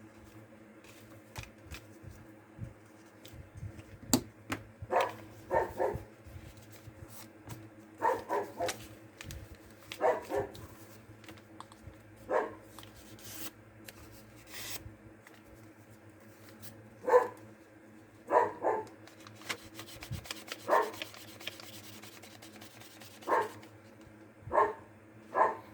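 An animal's short calls, singly and in pairs, coming every couple of seconds, over light clicks and rustling.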